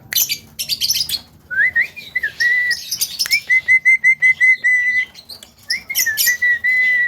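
Javan myna calling: a burst of harsh, scratchy chatter, then clear whistles. A rising slurred whistle is followed by a quick run of about ten short repeated whistle notes on one pitch, more harsh notes, and a long held whistle near the end.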